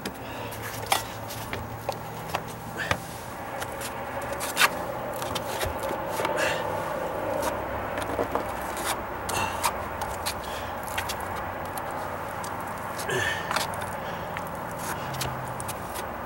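Putty knife scraping as it spreads mixed patching compound over a wooden deck stair riser, with scattered sharp clicks of the blade.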